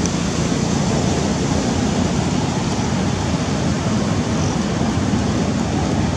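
A loud, steady rushing noise with nothing distinct standing out in it.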